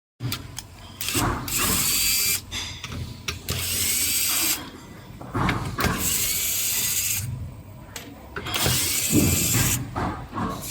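Weird mechanical grinding noise coming in four bursts of one to two seconds each, with quieter gaps between, which the owner traces to a connecting rod cap hitting a plate.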